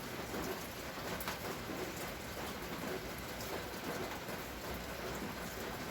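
Steady rain falling, with a few louder single drops ticking through it.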